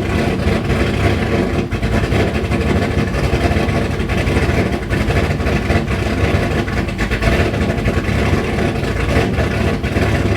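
A heavily cammed 6.4-litre HEMI V8 running loud and choppy with the throttle held open on its first start after a cam install. It will not idle on its own and keeps running only on the gas pedal, a sign that the new tune is not yet right.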